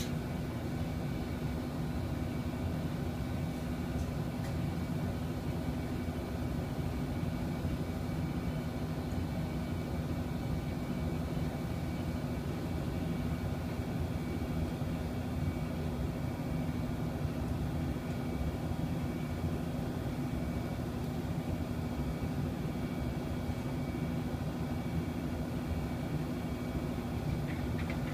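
Steady machinery hum with a constant low tone and a rumble beneath it, unchanging throughout.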